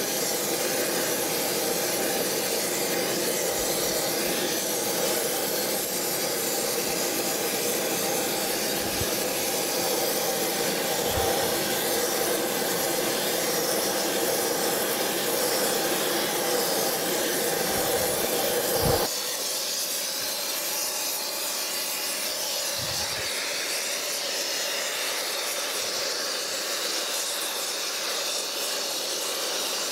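A gas torch with a rosebud heating tip burns with a steady hiss as it preheats a cast-iron casting. About two-thirds of the way through, the sound changes suddenly to a thinner, slightly quieter steady hiss from a Castolin Eutectic SuperJet-S spray-weld torch laying new metal onto the pitted slides.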